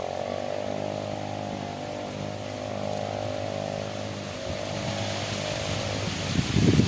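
A small engine running steadily with an even, buzzing hum; about six seconds in, loud rough noise like wind buffeting the microphone takes over.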